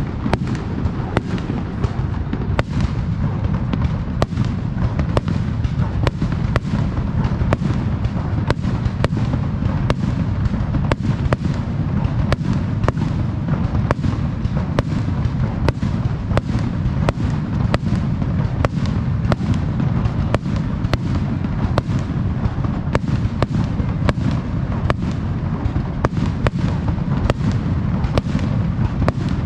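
Aerial fireworks bursting in rapid succession: sharp bangs about two a second over a continuous low rumble of booms.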